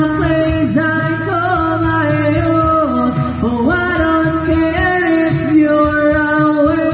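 A person singing a slow love song into a handheld microphone over backing music, holding and gliding between notes.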